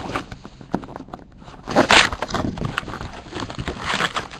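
Rustling, crinkling and scraping of cardboard and plastic wrap as a box of trading card packs is opened, with irregular clicks and a loud crinkle about two seconds in.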